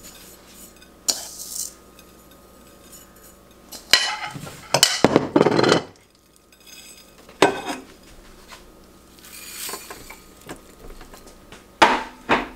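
Kitchen handling sounds: a metal spoon scraping and clinking on a platter as dry seasoning mix is spread over a raw beef roast, and the roast being moved into a slow cooker, with clatter of dishes. A cluster of louder knocks and scrapes comes about four to six seconds in.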